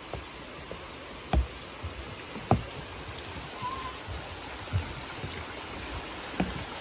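Steady rush of a small creek running over rocks, with a few dull thumps about a second or two apart.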